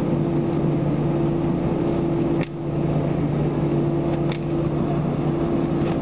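Airbus A321-231 cabin drone from its IAE V2500 jet engines running at low power while the aircraft rolls on the ground: a steady hum with two held tones over even noise. The level briefly drops about two and a half seconds in and again at the very end.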